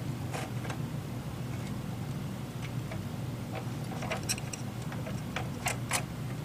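Small, irregular metal clicks and taps as a lamp head's swivel mount and nut are worked by hand against an emergency light's steel housing, with the sharpest clicks about four to six seconds in, over a steady low hum.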